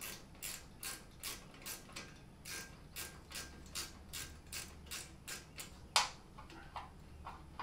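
Hand ratchet clicking as it turns a small nut off an engine wire terminal, a steady run of about two to three clicks a second, with one louder click about six seconds in.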